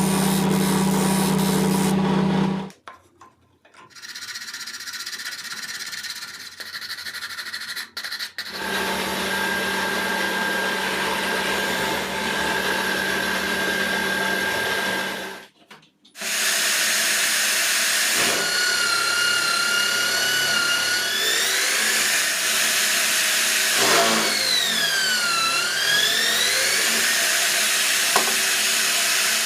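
Electric drill motor running steadily in several short clips. In the last one its whine wavers, then dips and climbs again as the speed is changed.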